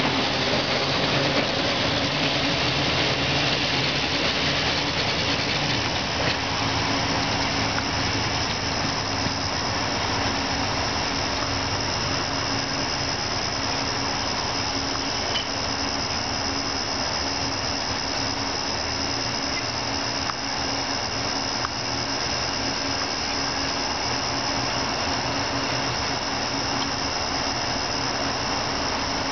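Electric streetcar running away down the line, its sound slowly fading over a steady high-pitched whine.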